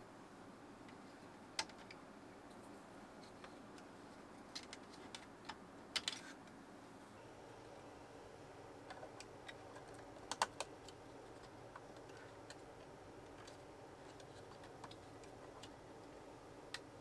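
Irregular light clicks and taps of toy parts being handled, a few seconds apart, the sharpest about six seconds in and a pair about ten seconds in, over a faint steady background hiss.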